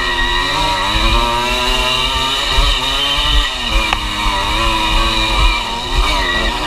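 Enduro dirt bike engine running on a trail ride, its revs rising and falling with the throttle. A single sharp tick sounds about four seconds in.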